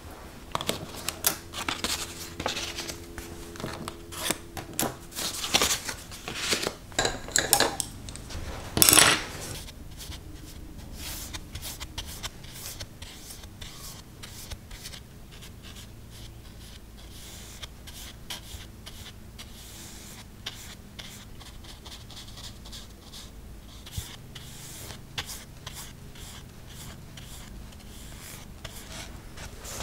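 Clinks and rattles of glass paint jars and a ceramic mixing dish for about the first ten seconds, some with a brief ring, the loudest about nine seconds in. After that come the soft, scratchy strokes of a paintbrush laying poster color onto hot-pressed watercolor paper.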